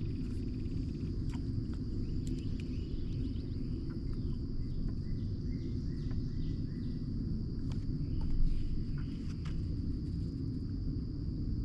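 Steady high-pitched insect drone over a low outdoor rumble, with a run of short chirps a few seconds in and a few light clicks.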